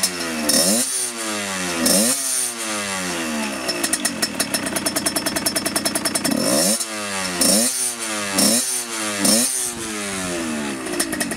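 Fantic motorcycle's two-stroke engine revved in repeated throttle blips, pitch rising and falling each time, with a rattling, rasping clatter from the bottom end, which the owner takes for worn-out crankshaft bearings.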